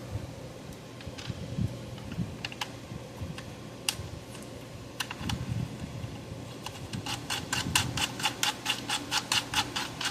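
Light clicks and taps of small tools and parts being handled on a repair bench, then a quick even run of clicks, about five a second, through the last three seconds, over a faint steady hum.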